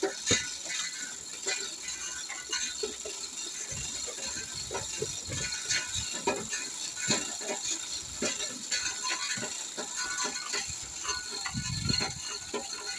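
Scattered clicks, knocks and rattles of speaker cables, connectors and metal rigging being handled on a stack of line-array speaker cabinets, over a steady high hiss.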